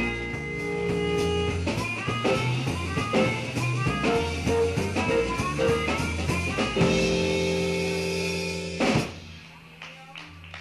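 Instrumental band music with drum kit and guitar, ending on a last hit about nine seconds in that rings away.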